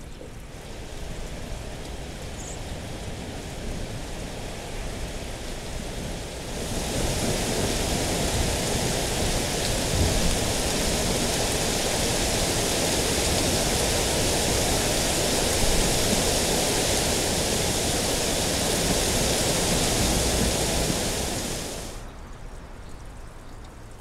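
Data-driven weather sonification: rain sounds whose amount follows the rainfall data, over a softer wind. The rain swells heavier about six seconds in and stops sharply about 22 seconds in, as the data turn dry, leaving the quieter wind.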